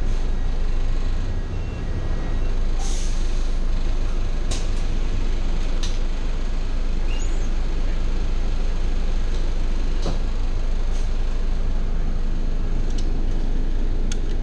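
A bus idling while stopped, heard from inside the cabin as a steady low rumble. A short hiss of air comes about three seconds in, and a few light clicks and knocks are scattered through.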